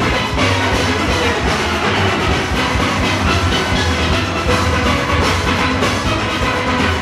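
A full steel orchestra playing live: massed steelpans ringing out a melody and chords, from high tenor pans down to deep bass pans, over drums and percussion keeping a steady beat.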